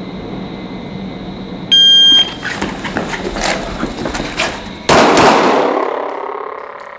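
A shot timer gives its start beep. About three seconds later a Glock 17 9mm pistol fires two quick shots, drawn from the holster, and the shots echo and fade in the indoor range.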